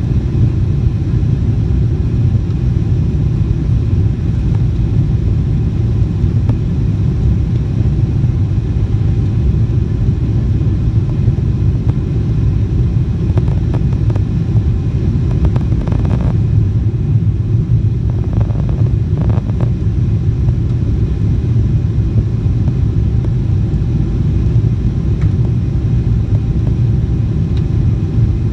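Jet airliner cabin noise: a loud, steady low rumble of engines and airflow that holds even throughout.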